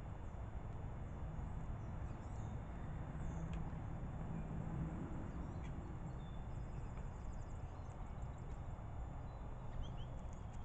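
Songbirds calling faintly in short chirps, with a quick rattling series in the middle, over a steady low rumble of background noise.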